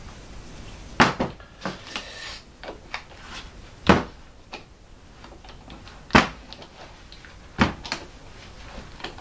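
Steel woodturning chuck parts handled and set down on a workbench: a string of separate clunks and clicks, the loudest about four seconds in.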